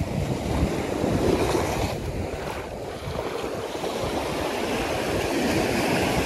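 Small surf washing in and out over the sand at the water's edge, a continuous swelling wash, with wind buffeting the microphone in a low uneven rumble.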